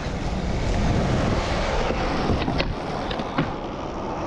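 Skateboard wheels rolling on smooth concrete, a steady rumble, with several short sharp clicks in the second half.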